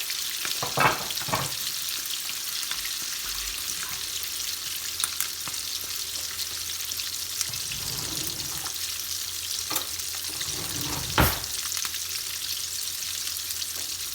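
Flour-coated chicken drumsticks sizzling in hot vegetable oil in a wok, a steady hiss, with a few short knocks, the loudest about eleven seconds in.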